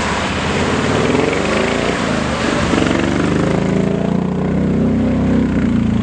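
Off-road 4x4's engine running hard, its pitch rising and falling, then holding steady over the last couple of seconds.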